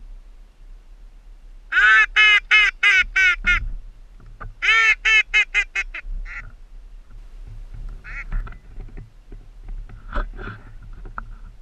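Duck call blown in two loud runs of about six quacks each, with a short pause between the runs; the second run is a little quicker.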